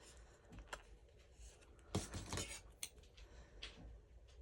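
Faint handling of paper and craft tools: light rustling and a few small clicks, the loudest cluster about two seconds in.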